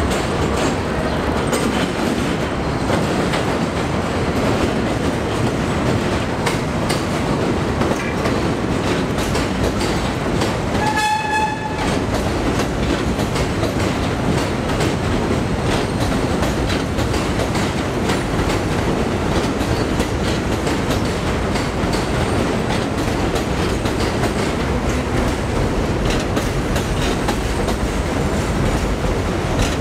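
Elevated New York City Subway trains running over track and switches: a steady rumble with wheels clicking over rail joints. A short, high horn-like toot comes about eleven seconds in.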